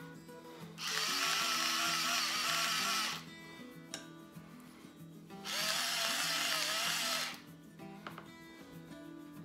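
Battery-powered spice mill grinding salt and pepper into a dip in two bursts of about two seconds each, its small motor whining over the rasp of the grinding. Faint background music runs underneath.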